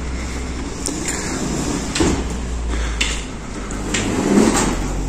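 Automatic sliding glass doors opening as two people walk through, with a few footsteps over a steady low rumble.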